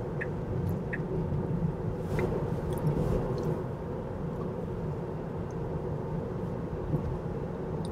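Steady road and tyre rumble inside the cabin of a Tesla Model 3, an electric car with no engine note. The turn signal ticks twice near the start, then stops.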